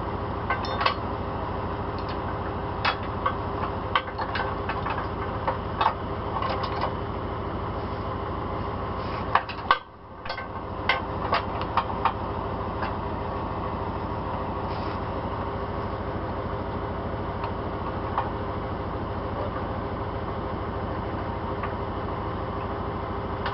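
A truck engine running steadily, with scattered sharp metallic clicks and knocks over the first half; the sound drops out briefly near the middle.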